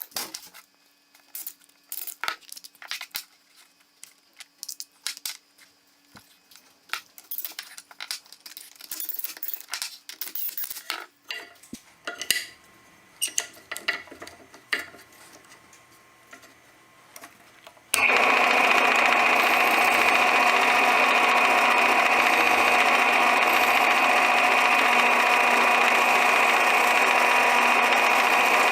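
Tools and wood being handled, with scattered clicks and knocks. Past the middle, an electric power tool starts suddenly and runs steadily at an even pitch.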